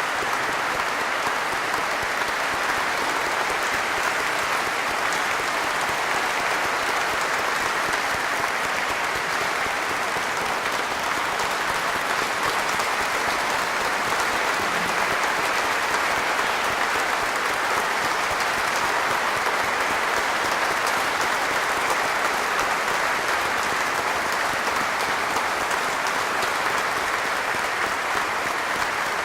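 A church congregation applauding steadily and at length, greeting their newly installed pastor.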